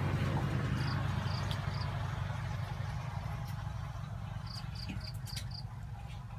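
Insects chirping in short high runs, three chirps about a second in and five more near the end, over a low steady motor hum that slowly fades. A few faint clicks near the end.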